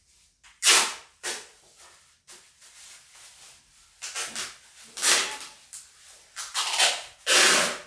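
A plastic bag crinkling and rustling in a run of short bursts as it is handled, the loudest rustles about a second in, around five seconds in, and a longer one near the end.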